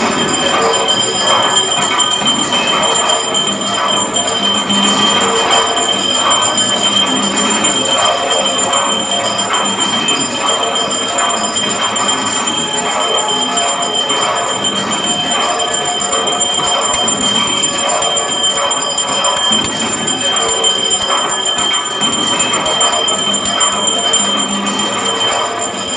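Hindu temple aarti: bells and jingling percussion clang without a break, a steady metallic ringing over the top, with voices singing the aarti.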